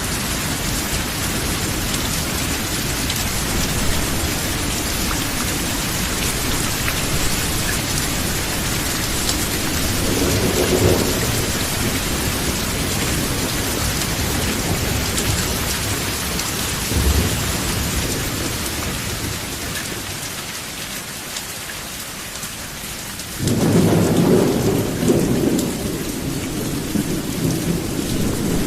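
Steady rain falling on a roof, with thunder: low rumbles about ten seconds in and again near seventeen seconds, then a louder thunderclap breaking in suddenly about 23 seconds in and rolling on.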